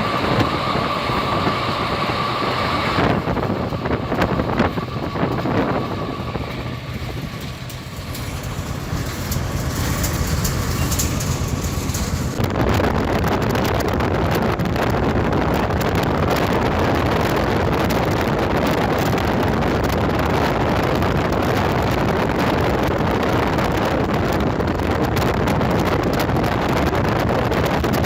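A train running on the track. The sound changes about halfway through to a louder, steady rushing noise.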